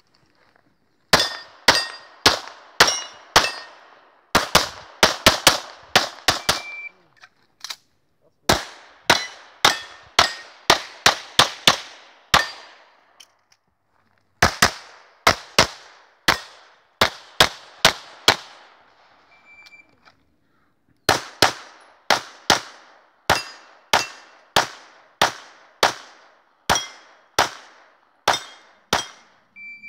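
Handgun fired in rapid strings during a practical shooting stage: shots a few tenths of a second apart, each with a short echoing tail, in five runs separated by pauses of one to two seconds.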